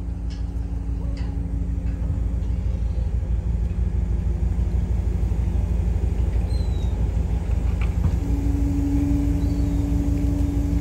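An engine running steadily, a low rumble with a constant hum; a second, higher hum comes in strongly about eight seconds in.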